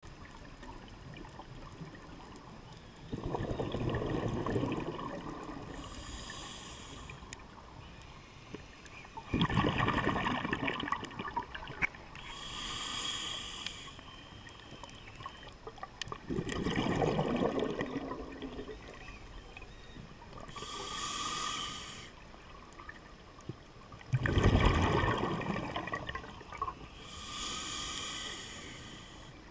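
Scuba breathing through a regulator underwater: four slow breath cycles about seven seconds apart. Each is a loud rushing gurgle of exhaled bubbles followed by a higher hiss of air drawn through the regulator.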